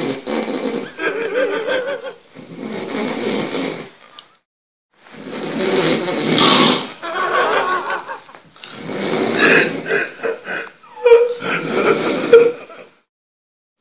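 Loud snoring: a run of about five long snores, each lasting one to three seconds, with short breaks between them and a longer pause about four seconds in.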